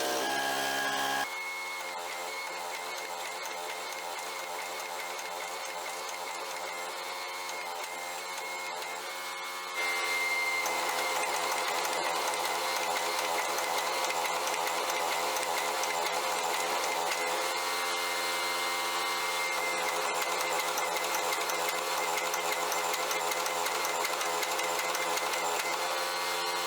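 An electric motor running steadily with a whine, as from a shop power tool. It drops in level suddenly about a second in and comes back louder near ten seconds.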